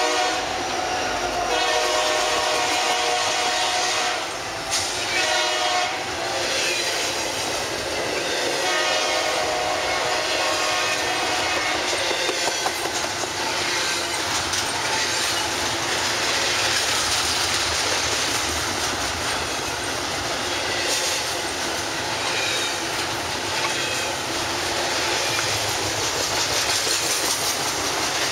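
Freight train passing close by. Its horn sounds in several long blasts over the first ten seconds, then the cars keep rolling past with a steady rumble and clatter of wheels on rail joints.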